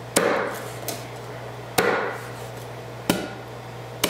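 A steel Chinese cleaver chopping raw chicken pieces on a wooden cutting board: four sharp chops, the blade striking the board about once every second or so.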